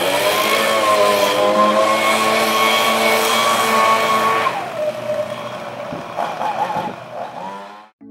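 Handheld leaf blower running at a steady high whine; about four and a half seconds in its pitch drops and it runs lower and quieter, then cuts off near the end.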